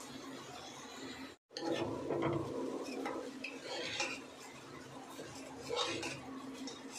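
Metal spoon stirring rice and vegetables in an aluminium pressure cooker, scraping and clinking against the pot in irregular strokes, starting about a second and a half in.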